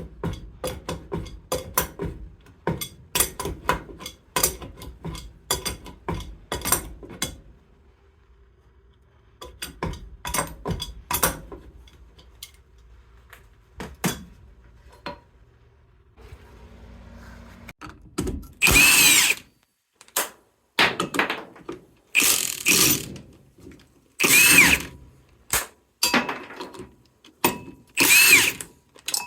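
A hand ratchet clicking rapidly, then a few sparse clicks. After that a cordless power tool is run in about half a dozen loud, short bursts, its motor pitch sweeping up and down in each, as fasteners are worked loose for a water pump removal.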